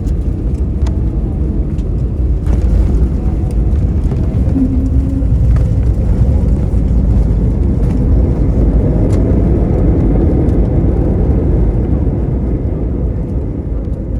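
Steady loud rumble of an Airbus A320neo's engines and airflow heard inside the cabin, swelling slightly through the middle.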